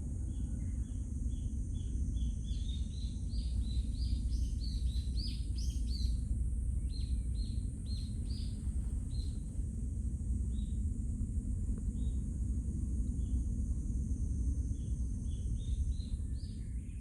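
Small birds chirping, many short chirps in quick runs, busiest in the first half and again near the end, over a steady low outdoor rumble and a constant high hiss.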